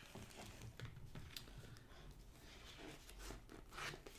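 Faint, scattered rustles and soft taps of packaging and accessories being handled, with a handful of brief clicks.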